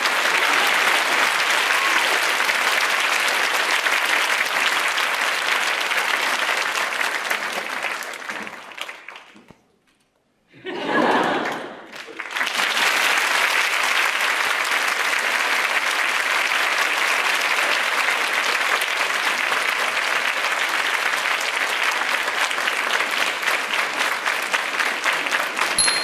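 Theatre audience applauding, dense steady clapping. About a third of the way in it fades out to near silence; after a short louder burst, the applause picks up again and holds to the end.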